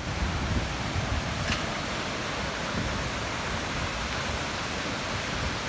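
Seljalandsfoss waterfall: the steady, even rush of falling water.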